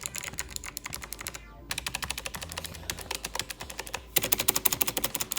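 SteelSeries Apex 5 mechanical keyboard being typed on quickly. Its clicky hybrid blue switches make a dense run of loud clicks, with a short pause about a second and a half in.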